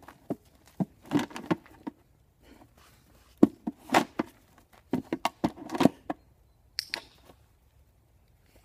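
Hollow plastic knocks and taps from a dog's paws stepping onto and off an upturned plastic tub, coming in irregular clusters.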